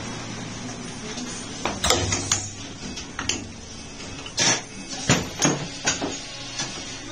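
Irregular sharp metallic clanks and knocks, about a dozen, from tools and parts being handled during a tyre change, starting a couple of seconds in over a steady low hum.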